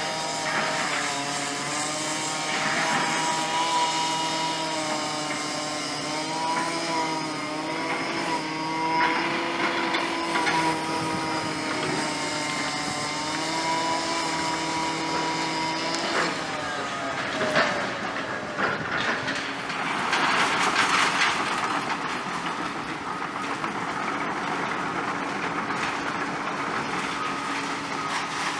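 Demolition excavator's engine and hydraulics working, a steady whine whose pitch shifts up and down as the machine moves. About sixteen seconds in it gives way to a noisier rumble with a few sharp knocks.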